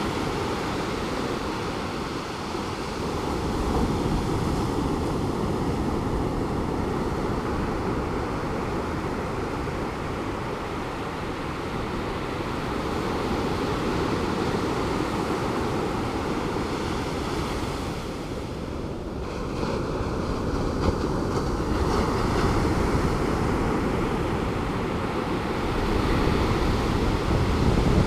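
Calm Pacific Ocean surf: small waves breaking and washing ashore, the wash swelling and easing every few seconds, with some wind on the microphone.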